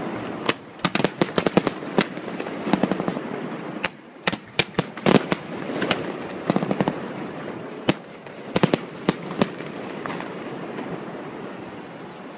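Fireworks display: rapid clusters of sharp bangs and crackling pops from bursting shells and rising comets, coming in volleys a second or two apart over a constant rumbling haze. The bangs thin out near the end.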